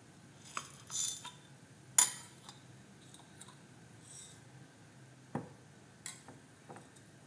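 Whole spices (dry ginger, black pepper and cumin) with panikoorka leaves being crushed by hand in the kitchen: a few irregular knocks and short gritty scrapes, the sharpest knock about two seconds in.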